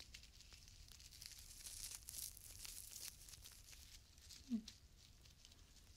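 Faint crackling and crinkling, densest from about one to three seconds in, with a short low falling hum about four and a half seconds in.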